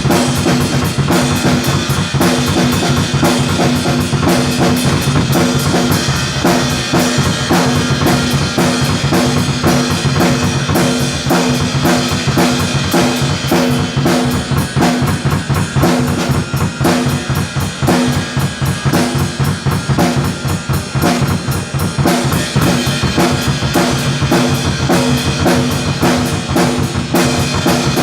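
A drum kit played continuously, with fast, dense hits throughout.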